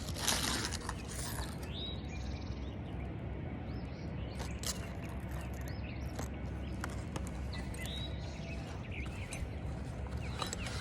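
Flat scraper blade working under asphalt roof shingles: a burst of scraping at the start, then scattered clicks and short creaks as the shingles are lifted and their nails pried out.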